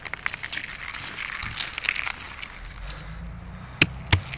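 Skateboard wheels rolling over gritty, frosty asphalt: a steady crackling, crunching grind with a low rumble, and two sharp knocks close together near the end.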